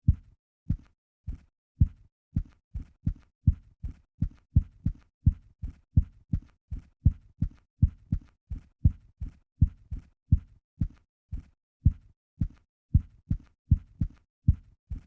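Typewriter keys being struck one at a time, each a dull thump with a faint click, about two a second at an uneven typing pace; the typing stops abruptly at the very end.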